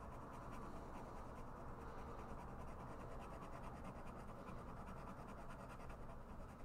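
Fountain pen nib scratching back and forth on planner paper, a faint steady run of many short scribbling strokes.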